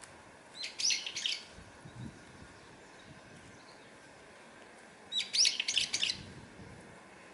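A songbird giving two short bursts of rapid, shrill chirps, each about a second long and about four seconds apart.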